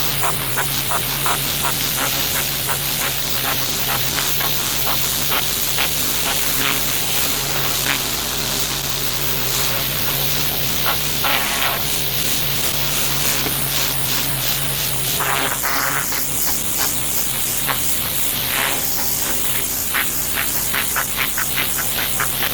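Pressure washer jet spraying onto stone paving, a steady hiss with crackling spatter, over the constant hum of the machine's motor.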